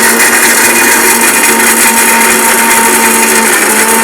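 Electric blender running loud and steady, grinding cashew nuts into a fine powder.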